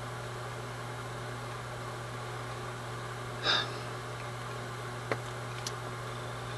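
Steady low hum with a faint hiss: room tone. A short breathy puff comes about three and a half seconds in, and a faint click about five seconds in.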